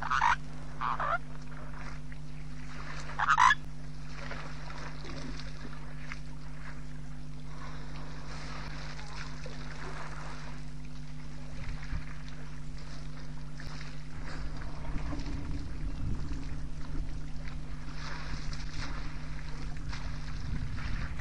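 A few short, loud honking bird calls in the first few seconds, over a steady low hum. Wind rumble on the microphone grows from about two-thirds of the way through.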